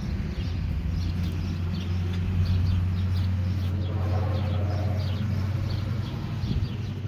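Small birds chirping over and over in quick short calls, over a steady low hum.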